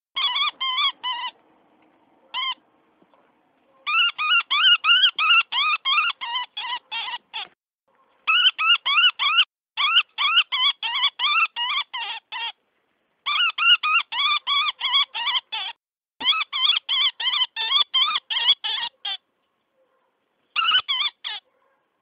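Woodpecker distress call, as played to lure predators: harsh squealing notes repeated about four times a second in runs of several seconds, broken by short pauses.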